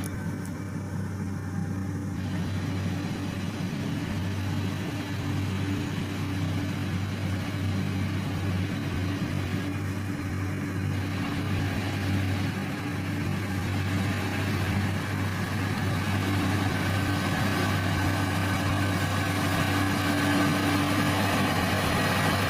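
An engine running steadily, growing gradually louder, typical of heavy road-construction machinery at work.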